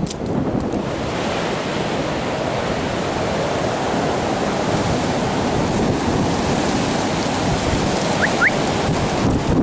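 Hurricane-force wind rushing steadily through trees, with gusts buffeting the microphone. Two short rising squeaks come near the end.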